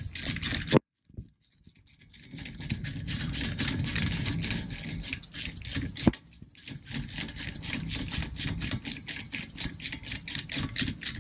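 Socket ratchet clicking quickly as it tightens a front brake caliper bolt, a fast, even run of pawl clicks starting after a short pause about a second in, with one sharper click near the middle.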